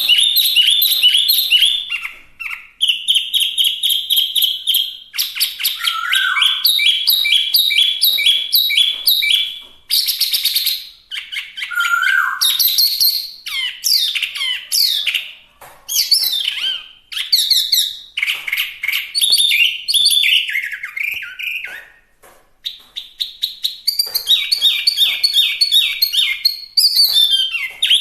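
Chinese hwamei (wambi) singing a loud, varied song: fast runs of repeated notes alternating with slurred whistled phrases, broken by short pauses.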